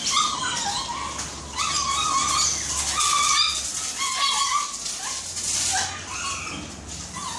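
Small shih tzu whining and whimpering during a hose bath, high wavering cries repeated throughout.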